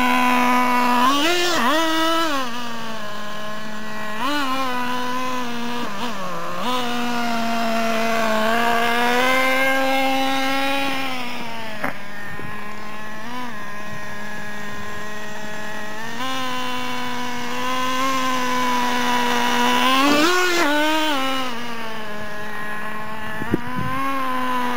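Small two-stroke nitro engine of a radio-controlled truck running at a steady high buzz, revved up briefly several times as it is driven, with a quick burst of revving about twenty seconds in. A sharp knock comes near the end.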